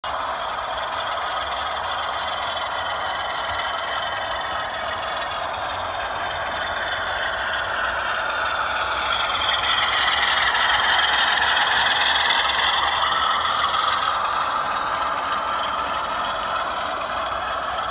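Model trains running on a layout: a steady mechanical running noise that grows louder in the middle as a train of coaches passes close, then eases off.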